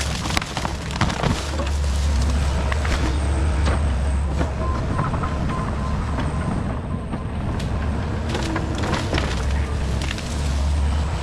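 Heavy diesel equipment running steadily under load, with frequent knocks and clanks of metal and debris over its low engine hum.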